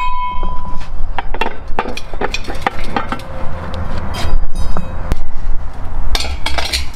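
Metal clinks and knocks from a cast-metal variable-pitch propeller hub as its inner shaft is worked in and out and the blades shift pitch, one ringing clink right at the start. Underneath runs a steady low rumble.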